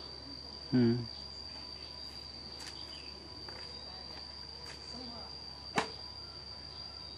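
A steady high-pitched insect drone, with a brief low voice sound about a second in and one sharp snap about six seconds in as a banana leaf is pulled.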